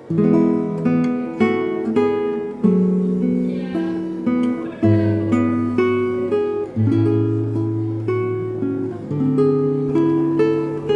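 Background music: acoustic guitar playing a picked pattern of notes over a shifting bass line.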